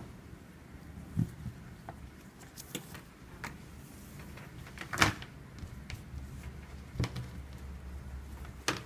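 Paracord being handled and pulled through a weave on a collar jig: scattered soft taps and rustles, the sharpest knock about five seconds in, over a low steady hum.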